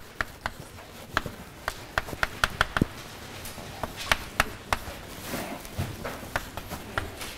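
Irregular short, sharp taps and clicks, about two or three a second, of a sketch being drawn during a pause in speech.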